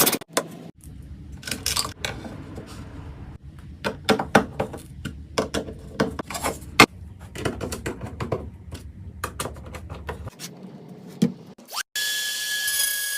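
Hand work on wooden pieces: irregular knocks, taps and scrapes of wood against wood and tools, with a low hum underneath. Near the end a steady high whine starts.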